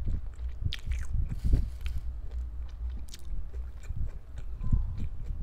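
Close-miked chewing of a mouthful of barbecued pork with the mouth closed: steady, rhythmic chewing with a few sharp mouth clicks, about a second in and again near three seconds.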